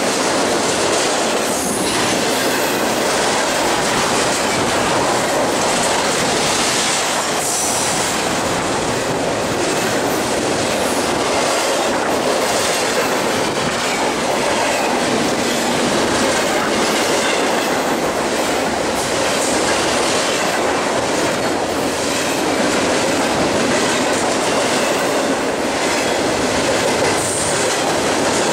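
BNSF double-stack container train's well cars rolling past at speed close by: a steady loud rumble of steel wheels on rail, with repeated clacks as the wheels pass over the track.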